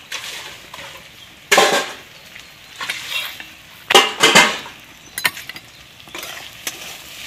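Square wheat-flour roti sizzling on a flat iron griddle (tawa), with two loud bursts of sizzling and scraping about a second and a half and four seconds in as a knife lifts and flips the bread, and a few sharp clicks of metal on the pan just after.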